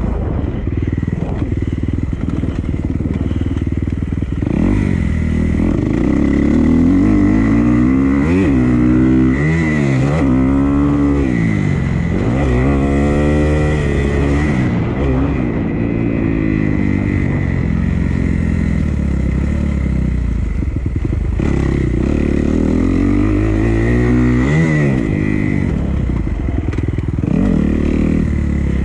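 Dirt bike engine being ridden hard, its pitch climbing and dropping again and again as the throttle opens and closes through the gears. A steady high whine runs underneath.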